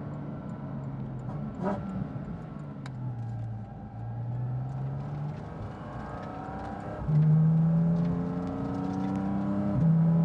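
Porsche 718 Cayman GT4 RS's flat-six engine, with a Fi Exhaust valved muffler and catless downpipe and the exhaust valves open, accelerating through the gears. The engine note rises, gets much louder about seven seconds in, climbs, and drops suddenly at an upshift near the end.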